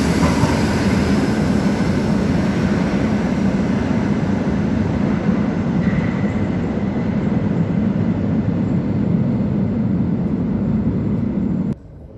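Metro train pulling out of an underground station and into the tunnel: a loud steady rumble of wheels and motors with a faint falling whine at first, echoing in the station. It stops abruptly near the end.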